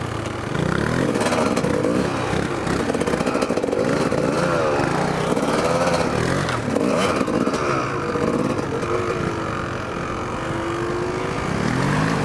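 Kawasaki dirt bike engine running under way, its pitch rising and falling again and again as the throttle is opened and closed.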